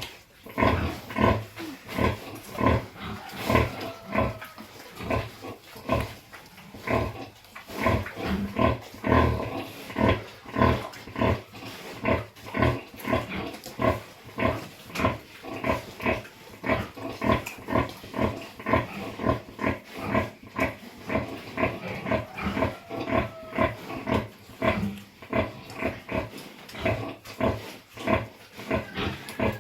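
Pig grunting steadily in a regular rhythm, about two short grunts a second, without pause.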